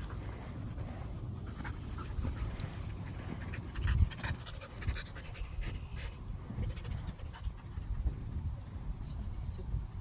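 A dog panting, with a single thump about four seconds in.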